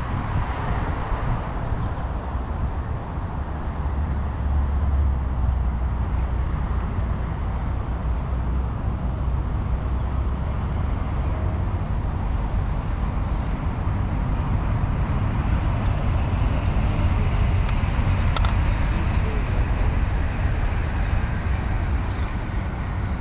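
Steady low rumble of road traffic, swelling for a few seconds near the start, with two faint sharp clicks about three quarters of the way through.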